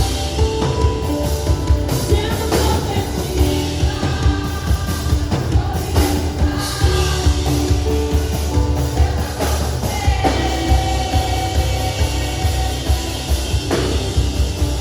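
Contemporary Christian worship song with drum kit, bass and singing, playing loud and unbroken.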